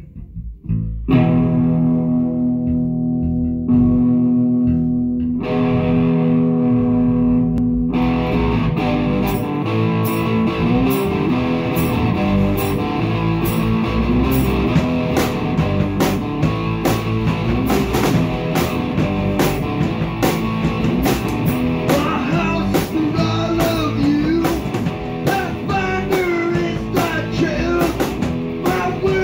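Small rock band playing live: electric guitar chords held and left ringing, then drums and bass come in with the guitar about eight seconds in and the song settles into a steady beat. From about two-thirds of the way through, a bending melodic line sits over the band.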